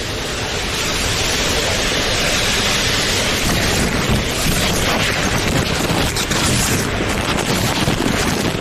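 Plastic crinkling and rustling right against the phone's microphone, a loud, dense crackling hiss as a plastic rain poncho is pulled on over the bag-wrapped phone.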